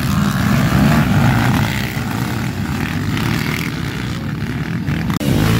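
A pack of racing quads (ATVs) running hard together, many engines blending into one dense, loud sound. It cuts out for an instant near the end.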